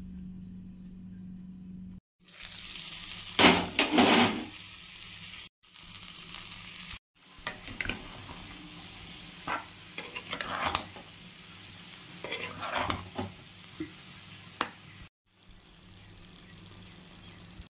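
Banana and potato pieces frying in masala in a pan, sizzling steadily, with sharp scrapes and knocks of a spoon stirring against the pan, loudest a few seconds in. The sound breaks off abruptly several times between short clips, and the first two seconds hold only a low hum.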